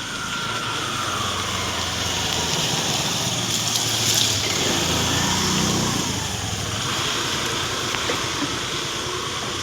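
Steady rush of flowing water, with a faint low hum swelling and fading in the middle.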